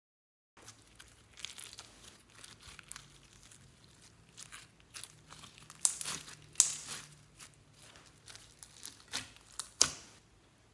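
Pink foam-bead slime being squeezed and kneaded by hand: an irregular run of crunchy crackles and pops. It begins about half a second in, with a few sharper, louder snaps around six seconds in and again near the end.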